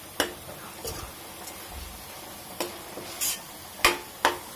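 A metal spoon stirring and scraping thick masala paste in a kadhai, with several sharp clinks of spoon on pan and one short scrape over the faint sizzle of the masala frying in oil, which is being fried until the oil separates.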